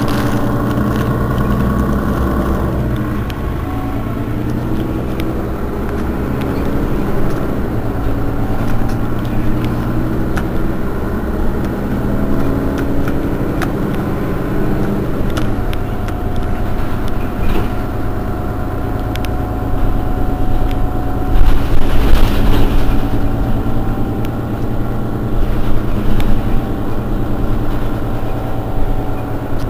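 Mercedes-Benz Citaro city bus's rear-mounted engine idling steadily while the bus stands still. About two-thirds of the way through there is a brief, louder burst of noise over the engine.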